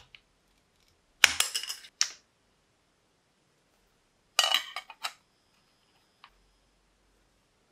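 Metal tools and parts clinking on a workbench: two short clusters of sharp clinks and taps about three seconds apart. A thin ringing follows the second cluster and stops about two seconds later.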